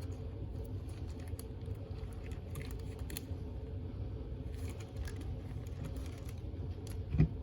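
Faint clicks and taps of hands handling plastic dishwasher parts, over a steady low hum, with one louder knock near the end.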